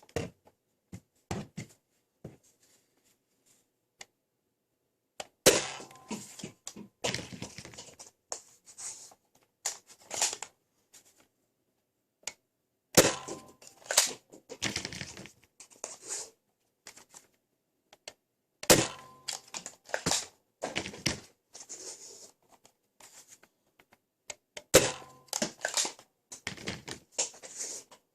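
Nerf Rival Fate XXII-100 with a Mega dart conversion kit being loaded, primed and fired one dart at a time: four rounds of a sharp snap and a run of plastic clicks and rattles, about six seconds apart.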